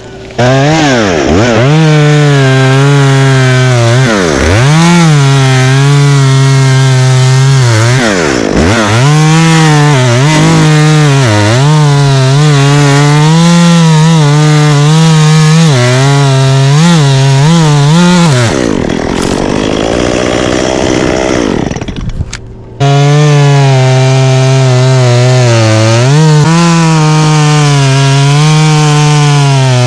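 Chainsaw cutting oak wood at high revs. Its pitch dips sharply and recovers again and again as the chain bites. Around two-thirds of the way in, it drops lower and quieter for a few seconds, breaks off briefly, then comes back loud at full revs.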